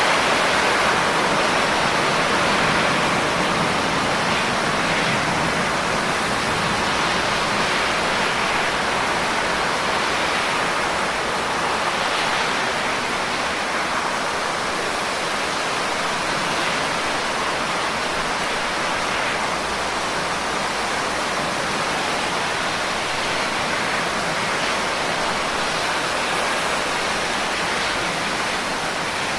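Steady rain falling, an even, unbroken hiss with no single drops or gusts standing out.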